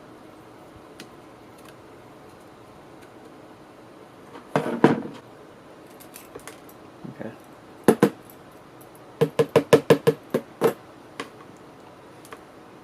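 Small hard objects knocking and clicking against a work surface as they are handled: a cluster about five seconds in, single knocks around seven and eight seconds, then a quick run of about seven knocks near ten seconds.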